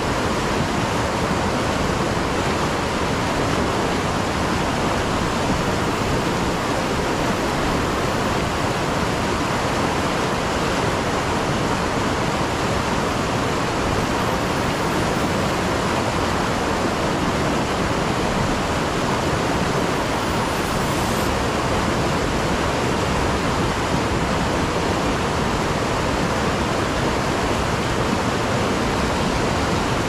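Steady rush of white water pouring through river rapids, an even hiss that holds at one level throughout.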